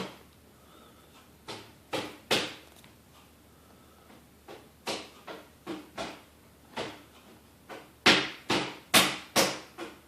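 Irregular sharp knocks or taps on a hard surface, about fifteen of them, with a quicker, louder run of knocks near the end.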